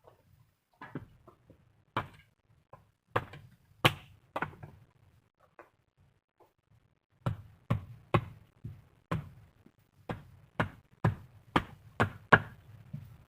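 A series of sharp knocks, a few scattered strokes at first, then after a short pause a steady run of about two strokes a second.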